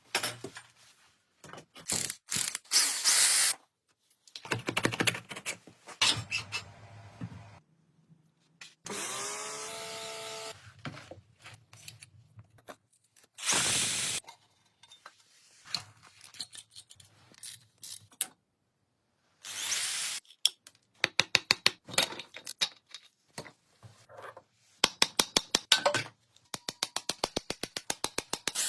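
Workshop tool sounds from work on an old rusty motorcycle: short bursts of a power tool and quick runs of rapid clicking, with scraping and knocking between and sudden cuts from one sound to the next.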